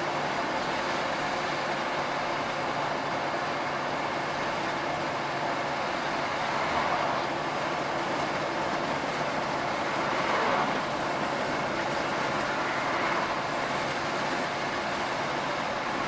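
Steady engine drone and road noise inside a moving truck's cab, swelling slightly twice, about seven and ten seconds in.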